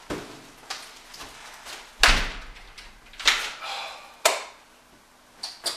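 A front door slams shut about two seconds in, followed by a few lighter knocks and the rustle of plastic shopping bags being carried in.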